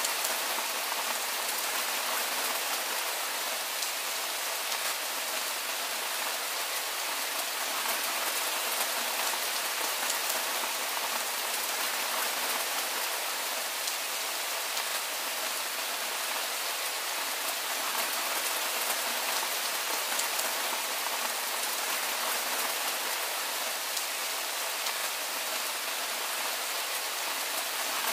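Soft, steady rain falling: an even hiss made of countless fine drop ticks, with very little low rumble.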